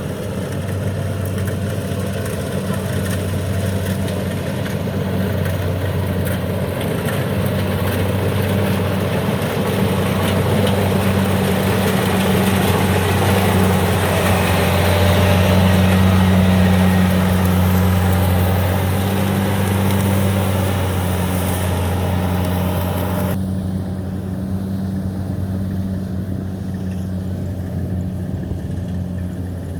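Kubota combine harvester's diesel engine running steadily under load while cutting rice, with a deep drone and a broad mechanical hiss. It grows louder toward the middle as the machine draws nearer, then eases off; the hiss drops away suddenly about three quarters of the way through.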